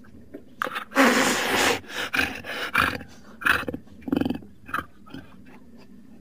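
Jaguar snarling: a loud, harsh snarl about a second in, then a run of short growling grunts about every two-thirds of a second.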